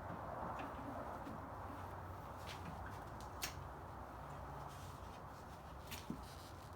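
A few short, sharp clicks and taps of a hand screwdriver working at the screws of a wooden console stereo cabinet, over a steady low hum.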